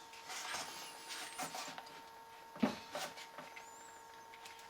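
Rifle action and polymer stock being handled and pushed together: irregular scraping and light knocks, with one sharper knock a little under three seconds in. The action is hanging up and won't seat fully in the stock.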